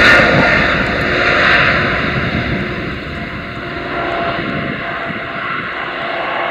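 Jet engines of a Boeing 777-200ER airliner on its landing roll on a wet runway: a loud, steady rush of engine noise that gradually fades as the aircraft slows.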